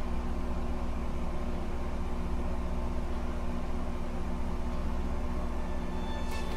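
Steady background hum and hiss with a low, even drone and no change. Music comes in right at the end.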